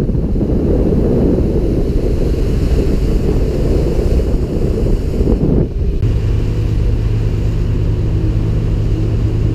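Wind buffeting the microphone over water rush and engine noise as a Bayliner 2655 cabin cruiser runs under way. A bit over halfway through, the sound switches suddenly to a steadier, even engine drone with less wind.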